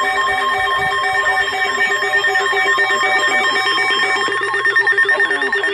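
Several electronic alert tones sound at once: steady and pulsing beeps under a fast, repeating chirping warble. It is the emergency alert signal ahead of a tornado warning broadcast. The pulsing beeps stop about four seconds in.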